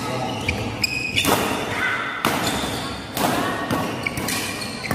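Doubles badminton rally: rackets striking the shuttlecock about once a second, with short squeaks of shoes on the court floor, echoing in a sports hall.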